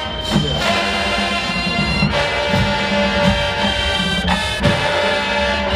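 Full marching band playing an opening fanfare: brass and sousaphones sounding long held chords, punctuated by a few sharp drum hits.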